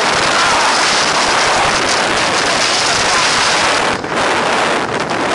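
Storm-force wind gusts of up to about 125 km/h blowing over an action camera's microphone: a loud, steady rushing roar that eases briefly about four seconds in.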